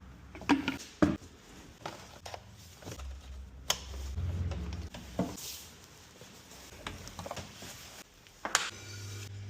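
Workshop work noises: scattered clicks and knocks of tools and car parts being handled, with a steady low hum starting near the end.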